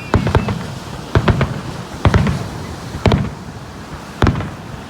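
Aerial fireworks shells bursting, a series of sharp booms about once a second, each followed by a low rumbling echo.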